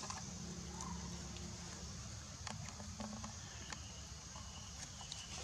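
Outdoor ambience: a steady high hiss over a low rumble, with a few faint scattered clicks and ticks.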